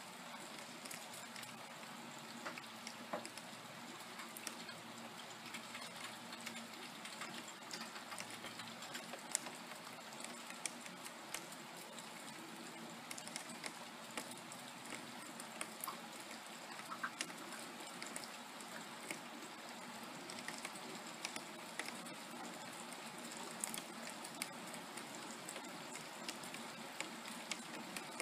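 Steady rain falling, with frequent sharp taps of individual drops landing close by.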